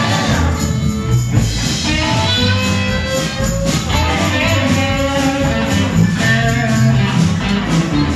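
Rockabilly band playing live in an instrumental break, with a guitar lead line over the band.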